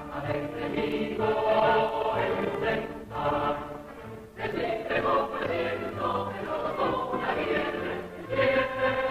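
Choir singing a series theme song over instrumental backing, from an old television soundtrack with the high end cut off.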